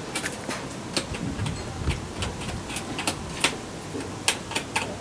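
Irregular sharp clicks and ticks from a Cape crested porcupine, about a dozen spread unevenly over a few seconds.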